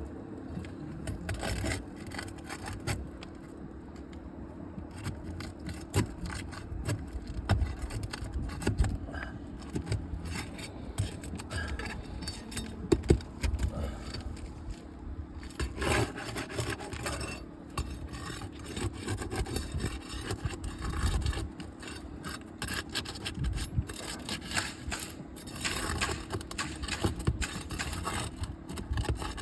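Aged 3-tab asphalt shingles being worked loose by hand for removal: irregular scraping and rubbing with scattered sharp knocks as the shingle is pried up and its seal and nails are broken free.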